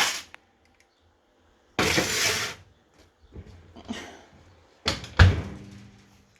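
Kitchen handling noises: a short scraping rustle about two seconds in, then a sharp knock with a dull thud about five seconds in, as of cookware or a cupboard door.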